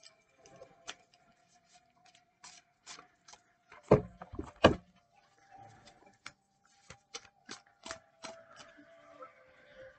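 Handling noise: scattered clicks and knocks, the two loudest a little under a second apart about four seconds in, over a faint steady tone.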